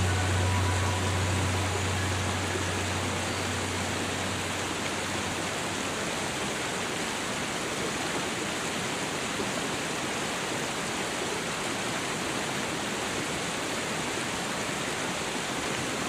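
Steady rushing of falling water from a waterfall, an even unbroken noise. A low droning tone underneath fades out over the first five or six seconds.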